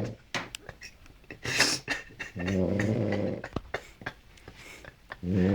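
A person snoring: a breathy out-breath about one and a half seconds in, a low snore on the in-breath lasting about a second from about two and a half seconds in, and the next snore starting near the end.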